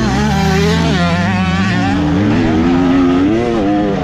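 Motocross dirt bike engine revving hard, its pitch rising and falling quickly with the throttle.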